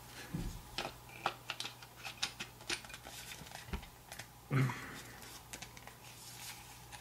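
Light clicks and taps of a polymer Ruger BX-25 magazine knocking against the USFA Zip .22 pistol's polymer frame as it is worked into the magwell, with a duller knock about halfway through.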